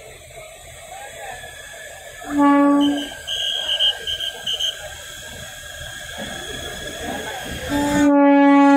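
Locomotive horn sounding: one short blast about two seconds in, then a long blast starting near the end. Between the two are several short, shrill high-pitched pips.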